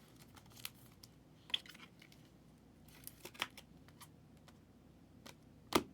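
Trading cards being handled: faint scattered rustles and light clicks of cards and sleeves sliding and tapping, with one louder short tap just before the end.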